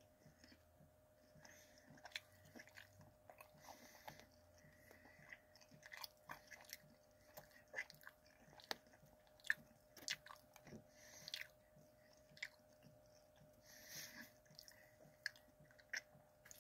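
Faint close-up chewing of a bagel dog: scattered soft mouth clicks and smacks, with the odd breath through the nose.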